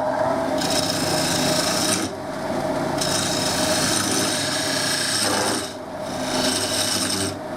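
Parting tool cutting into a spinning green-wood blank on a wood lathe, in three passes with short breaks, over the steady hum of the lathe running at 1750.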